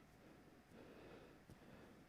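Near silence: faint room tone, with one soft click about one and a half seconds in.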